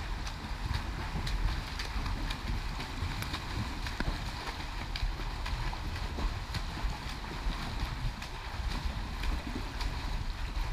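Splashing of a swimmer's arm strokes in pool water, with short irregular splashes over a steady low rumble of wind-like noise on the microphone.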